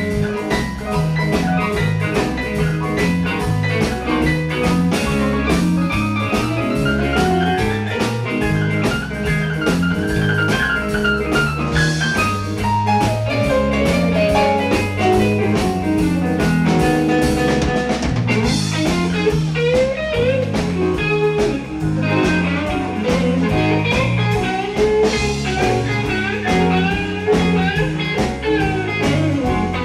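Live band playing a blues-rock instrumental passage: electric guitar lead with bending notes over bass guitar, keyboard and drum kit.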